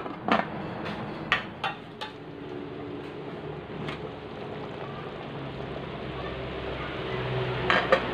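Aluminium pot lid clinking and knocking against the rim of the pot, several light metal knocks in the first two seconds and again near the end as the lid is lifted off, over a steady hiss of the coconut milk heating toward a boil.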